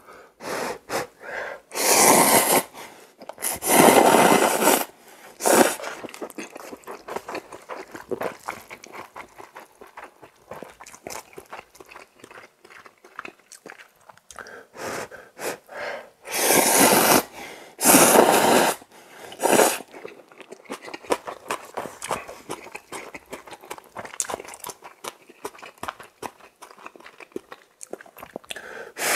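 Close-up eating of cup ramen noodles: four loud slurps of about a second each, two near the start and two close together around the middle, with steady chewing and small wet mouth clicks in between.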